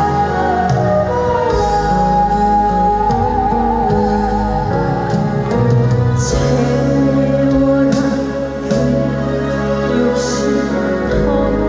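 Live performance of a Korean trot song with a full accompaniment. About a second and a half in, the melody holds one long wavering note.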